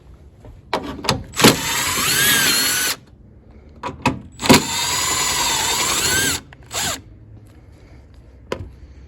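Cordless power tool with a 10 mm socket running in two bursts of a second and a half to two seconds each, a motor whine that sags and recovers in pitch under load, as it spins out the two 10 mm headlight bolts. A few light clicks and knocks of the socket and tool come before and after.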